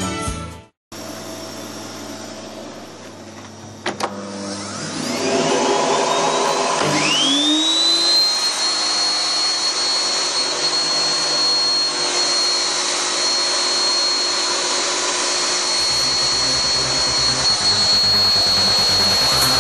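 A click, then an electric motor spins up: its whine rises over about three seconds and settles into a steady high-pitched running, over a low hum.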